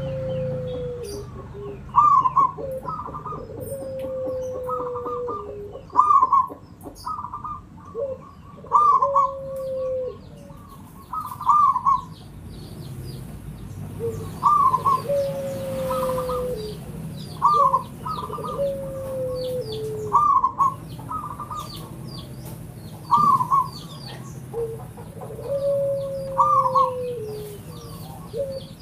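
Local Javanese zebra dove (perkutut) cooing: phrases of short hooked coos and a longer falling coo, repeated every few seconds. Small birds chirp faintly in the background.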